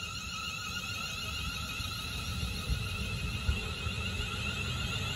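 London Northwestern Railway Class 350 Desiro electric multiple unit moving along the platform, with a high electric whine from its traction equipment. Under the whine, a low rumble of wheels on rail grows steadily louder.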